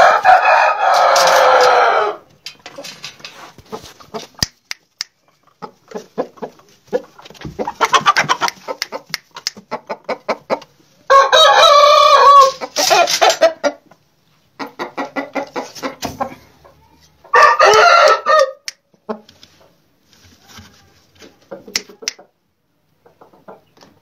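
Aseel roosters crowing three times, at the start, about halfway and about three quarters of the way through, with runs of rapid clucking between the crows.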